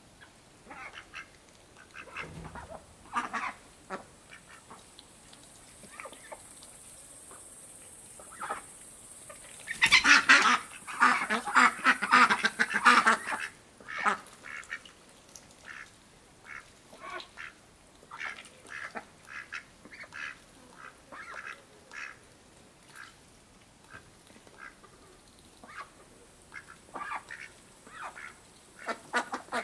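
Domestic ducks quacking in short separate calls, with a loud burst of many calls together about ten seconds in that lasts a few seconds.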